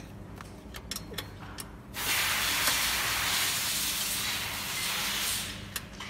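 A few light metal clicks, then a loud, steady hiss that starts about two seconds in and fades out after about three and a half seconds.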